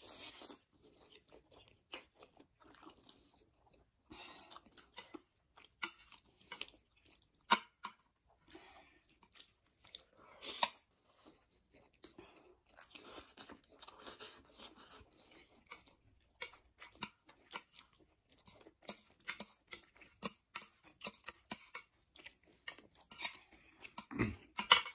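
Two people slurping and chewing spicy instant ramen noodles: wet slurps and mouth sounds scattered throughout, with a few sharp clicks, one about seven seconds in and one near the end.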